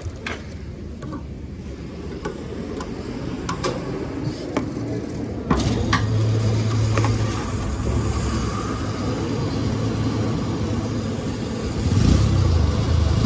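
A few sharp metallic clicks as the motorcycle's locking fuel cap is opened. About five seconds in, a fuel dispenser's pump starts a steady low hum as petrol is pumped into the tank, growing louder near the end.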